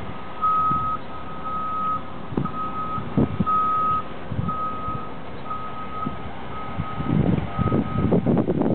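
A vehicle's reversing alarm beeping a single steady tone about once a second, each beep about half a second long. Bursts of low rumble come in near the end.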